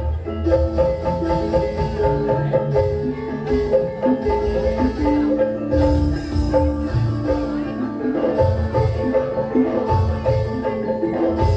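Javanese gamelan music played loud through a sound system: metallophones ring out repeated melodic notes over heavy, rhythmic drum beats in the bass.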